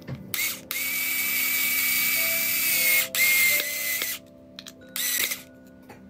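Small 3.2 V cordless screwdriver driving a screw through a metal angle joiner into a wooden leg, its motor giving a steady whine. A short blip, then a run of about three and a half seconds with a brief break in the middle, and one more short burst about five seconds in.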